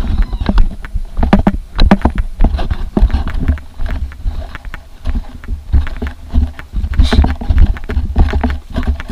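Irregular low rumble of wind and handling on the camera microphone of a walking person, with scattered footsteps and crunches on a grassy dirt trail.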